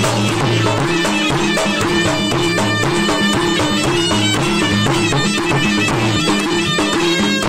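Malay gendang silat music: two double-headed gendang drums hand-struck in a fast interlocking rhythm, under a reedy serunai oboe playing a stepping melody.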